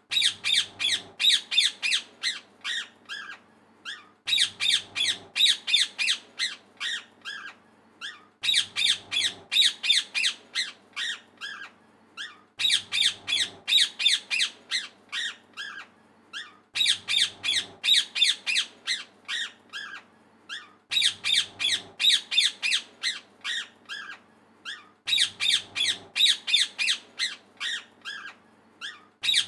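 Parrot chirping in rapid, short, high-pitched calls, several a second, the same phrase repeating about every four seconds as a loop.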